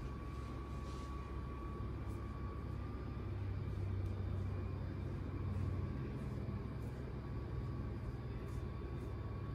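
Steady low rumbling hum of background noise, swelling a little in the middle.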